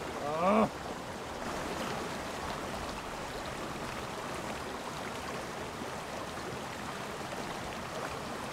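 Small mountain stream rushing over a low cascade, a steady even hiss of water. A short voiced exclamation right at the start.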